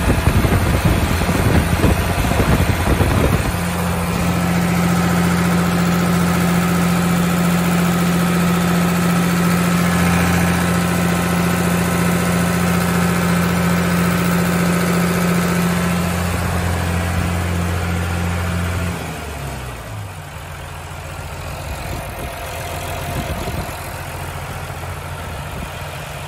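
Perkins 1006-6 six-cylinder diesel engine of a hydraulic power unit running at a steady speed, louder and rougher for the first few seconds. About three quarters of the way through, its engine speed drops and it settles into a lower, quieter idle.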